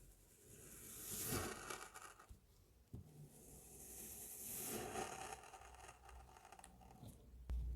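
Kinetic sand being scraped and cut: two gritty scraping strokes that swell and fade, one about a second in and a longer one around four to five seconds in, with a few light taps between.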